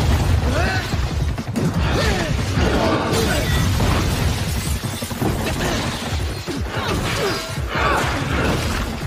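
Background music mixed with crashing and smashing fight sound effects as rubble breaks, over a heavy low rumble.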